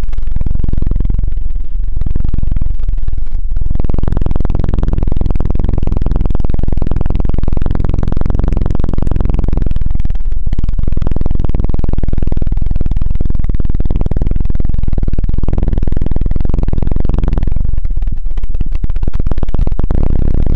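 A thin stick twirled against a microphone, the ASMR 'helicopter' effect: a rapid, close, fluttering thudding with most of its weight in the low end. It drops away briefly a few times, once near the start and again around the middle.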